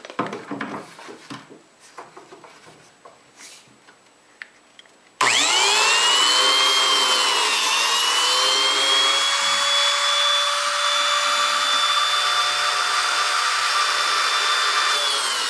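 A few faint handling knocks, then about a third of the way in a biscuit joiner's motor starts with a rising whine and runs steadily and loudly. Its pitch dips briefly twice as the blade is pushed into the wood to cut slots.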